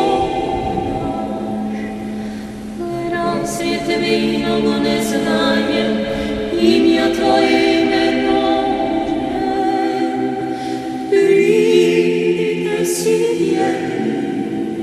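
Choir singing a cappella, several voices holding long chords that change every second or two, growing louder about eleven seconds in.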